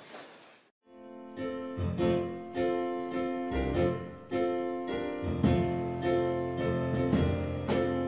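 Piano or electric keyboard playing sustained chords over low bass notes, starting about a second in after a brief dropout, with sharp percussive hits coming in near the end.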